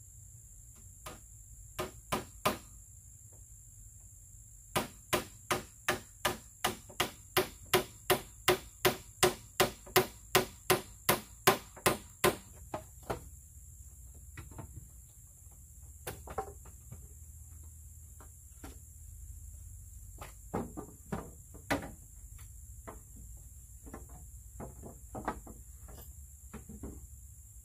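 A tool striking bamboo: a run of hard, evenly spaced blows, about three a second for some seven seconds, then scattered lighter knocks and taps. A steady high insect drone runs underneath.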